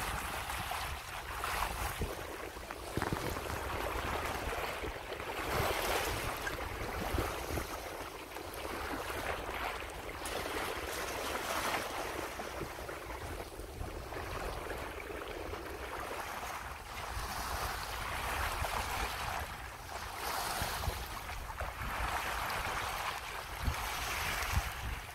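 Bay water washing and splashing along a moving sailboat's hull, rising in rushing surges every second or two, with a steady low rumble of wind on the microphone.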